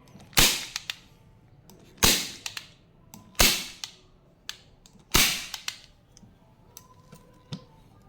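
Hand-squeezed staple gun firing four times, roughly one and a half to two seconds apart, driving 53-type staples through fabric into a chair. Each shot is a sharp snap followed by a few lighter clicks.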